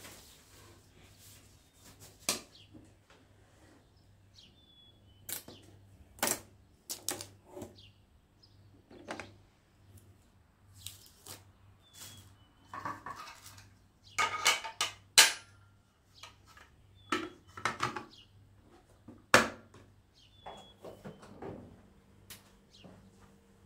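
Kitchen handling sounds: irregular clinks and knocks of dishes and utensils being set down and moved, the loudest cluster about two-thirds of the way through. A few faint short chirps come and go.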